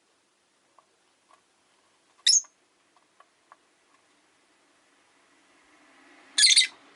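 Rosy-faced lovebird giving two shrill calls: a short one about two seconds in and a longer one near the end, with faint light clicks in between. A low rumble builds under the second call.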